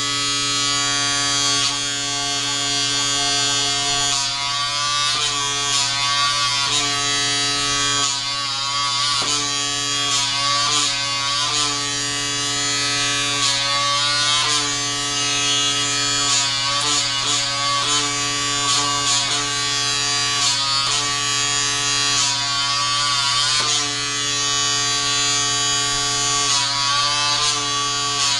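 PMD Personal Microderm's small vacuum motor running steadily, its hum dipping and bending in pitch every second or two as the suction wand is drawn across the skin.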